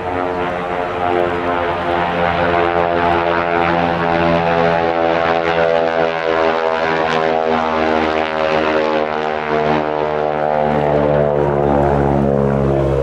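Single-engine propeller plane flying past, a loud steady engine drone whose pitch drops slightly near the end.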